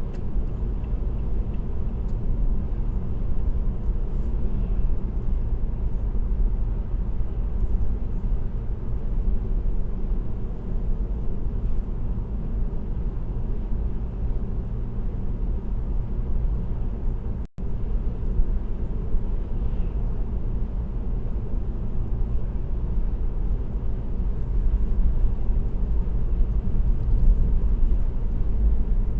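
Steady low road and tyre rumble with engine noise from a car cruising at highway speed, recorded by a dashcam inside the cabin. The sound cuts out for an instant a little past halfway.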